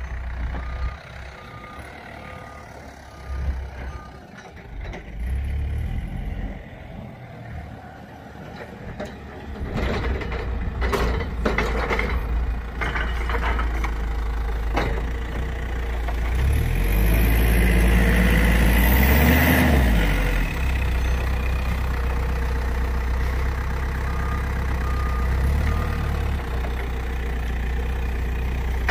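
A heavy vehicle's engine running steadily during apple-bin loading, with a reversing alarm beeping in a short run at the start and again near the end. Partway through come a few knocks, and later the engine revs up and back down with a burst of hiss.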